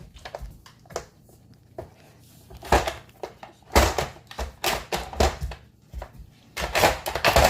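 Pieces of a dog treat puzzle knocking and clattering irregularly as a puppy noses and paws at them hunting for hidden food, with several louder bursts of rattling knocks in the second half.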